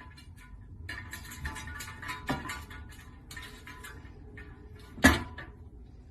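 Light clicks and knocks, with a sharper knock about two seconds in and a louder sharp knock about five seconds in.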